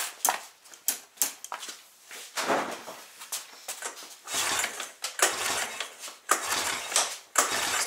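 Recoil pull starter on a 1999 Yamaha Wolverine 350 ATV yanked hard again and again, each pull spinning the four-stroke engine over with a compression gauge in the spark plug hole and the throttle wide open. Light clicks and rattles come first, then about four pulls a second apart. This is a cranking compression test for low compression, with the gauge still climbing past 92 PSI.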